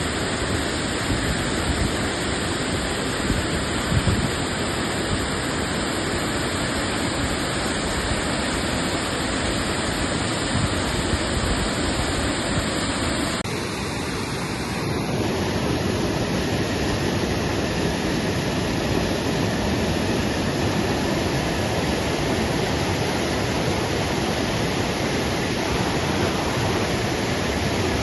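Waterfall rushing, a steady full roar of falling water, with a brief dip and a slight change in tone about halfway through.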